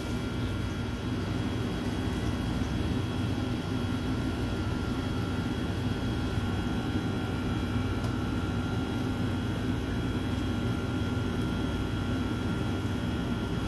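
Steady low hum of bakery machinery and fans, with a few faint steady tones above it.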